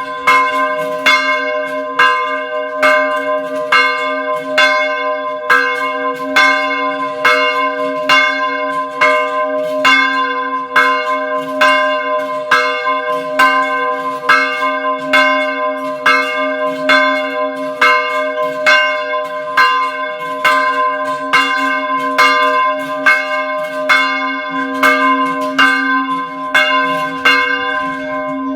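Small church bell ringing in a steady, rapid peal, about two strikes a second, with a low hum sustained beneath the strokes.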